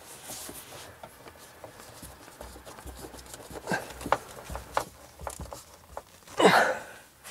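Faint, scattered clicks and light knocks of a panel being handled and fitted into place, with a few sharper ticks in the middle and one louder brief noise about six and a half seconds in.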